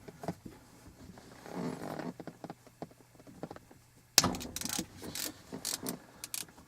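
Faint tool handling, then from about four seconds in a run of sharp clicks from a hand ratchet with a 6 mm hex socket loosening the shifter bolts.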